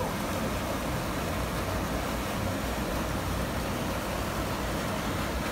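Steady rushing of water spilling over a small concrete weir into a canal.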